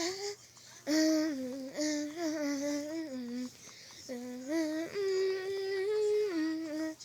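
A child humming a wordless tune in phrases of held, wavering notes that slide up and down, with short pauses about half a second in and again just past the middle.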